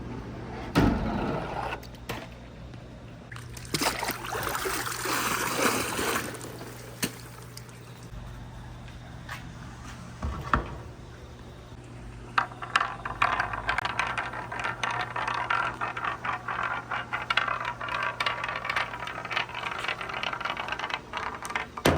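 Water running down a wooden marble run while marbles roll and click along the wooden track, with a low steady hum underneath. There are single knocks about a second in and around ten seconds in, then a dense rattle of small clicks from about twelve seconds on.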